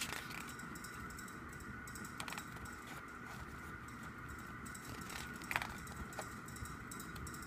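Album photo book being handled and its pages turned: a few short paper rustles and taps, about two seconds in and again past five seconds, over a steady faint hum.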